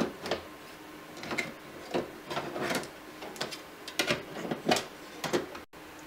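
Sheet-metal optical drive cage being slid forward and tilted up out of a slimline PC's steel case: a dozen or so short metallic scrapes, clicks and clunks.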